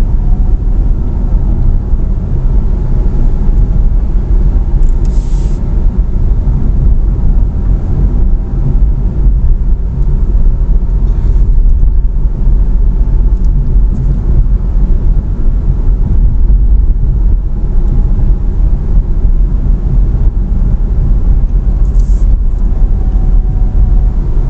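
A car being driven through town, heard from inside the cabin: a steady low rumble of engine and road noise.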